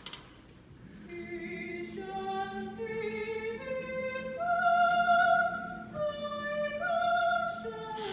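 A high singing voice, starting about a second in, holding long notes in a melody that climbs to its loudest, highest note about five seconds in, over a low steady tone.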